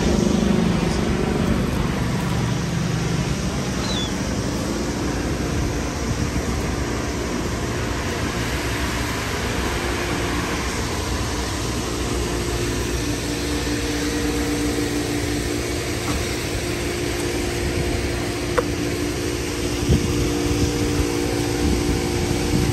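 Steady machine hum with a low rumble. A droning tone of a few pitches joins about ten seconds in.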